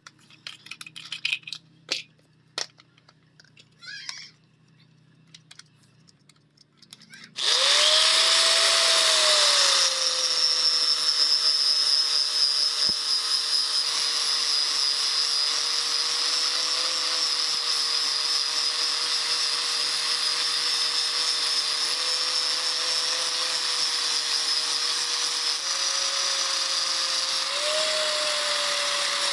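Clicks and knocks of a disc being handled on an angle grinder, then about seven seconds in the angle grinder starts and runs steadily with a pink polishing wheel worked over a steel meat cleaver blade. Its high whine dips a little just after start-up and rises briefly near the end.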